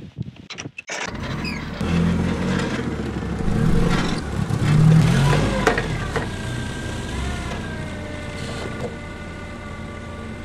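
An old forklift's engine starting: a few clicks, then it catches about a second in and runs, its rumble rising and easing off as it works.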